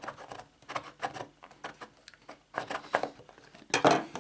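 Hands opening a smartphone's cardboard retail box: irregular scratching, tapping and scraping of cardboard and plastic wrap, with a louder scrape near the end.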